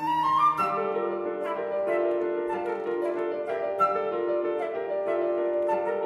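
Flute and piano duo playing contemporary classical music: quick rising flute runs in the first half-second, then held notes over a dense layer of piano chords.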